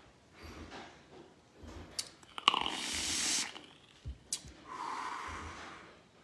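A person drawing on a box-mod vape and blowing out the vapour: two long breathy exhales, the louder one about halfway through and a second near the end, each preceded by a sharp click.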